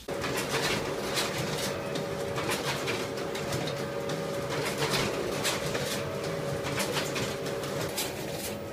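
Canon office photocopier running: a steady machine hum with a constant whine and irregular clicks and rattles.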